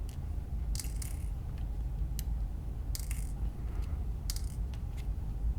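Light clicks and clinks of small hardware and parts being handled on a work surface, four or five scattered clicks over a steady low hum.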